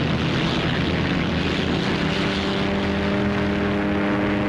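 Twin Rolls-Royce Merlin V12 engines of a de Havilland Mosquito running at takeoff power as the aircraft rolls down the runway: a steady rushing engine noise, with a steady droning note coming up out of it about a second and a half in.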